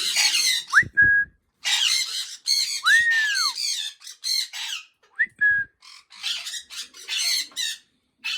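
Pet parrots squawking harshly over and over, with a few clear whistled notes among the squawks, one rising quickly about a second in and an arched one about three seconds in.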